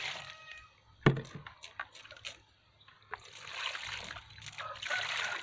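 Water poured from a plastic basin splashes into a plastic tub of skinned snakes, with a sharp knock about a second in. Later comes wet splashing and scraping as a knife works along a snake in the water.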